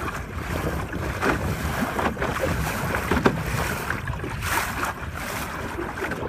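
Wind buffeting the microphone over the rush and slap of water along the wooden hull of a 12-foot Whitehall sailing skiff under way.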